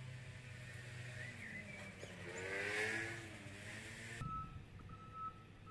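Vehicle reversing alarm beeping from about four seconds in: a steady high beep repeating about one and a half times a second. Before it, a louder rush of noise swells and fades around the middle.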